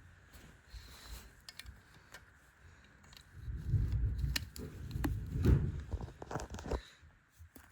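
Plastic LEGO pieces being handled: scattered small clicks and rustling, with a louder stretch of rummaging and knocking from about three seconds in until near seven seconds.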